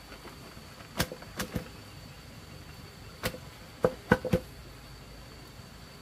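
Seven sharp knocks or taps, irregularly spaced: three about a second in, then four between about three and four and a half seconds in.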